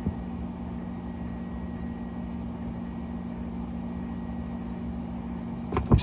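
A steady low electrical hum, with a couple of short low knocks near the end.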